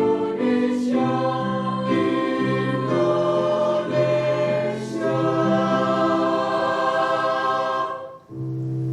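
A choir singing slow, sustained chords in several voice parts. Near the end the voices break off briefly, then come back in on a low held chord.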